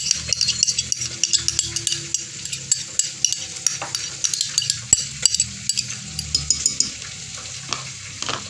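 Spoon scraping and clinking as chipotle chiles in adobo are spooned into a glass blender jar, over a steady crackling sizzle of pork ribs frying in oil.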